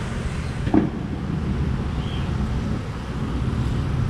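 Steady low rumble of street traffic, with one short sharp knock about a second in.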